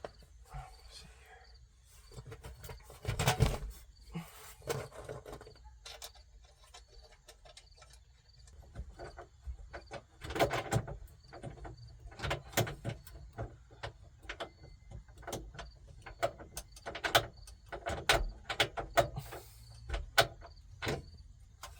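Irregular clicks, knocks and rattles of hands working a car radio and its mounting parts into a truck's dashboard, in bunches about three seconds in, around ten seconds and through the second half.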